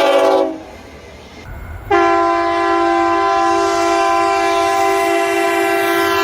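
Locomotive air horn sounding a chord of several tones: one blast cuts off about half a second in, and after a gap of about a second and a half a long steady blast begins.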